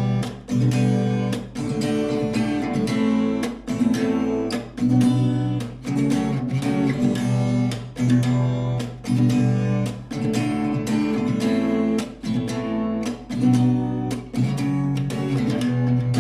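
Acoustic guitar strummed in a steady rhythm, the chords changing every second or two.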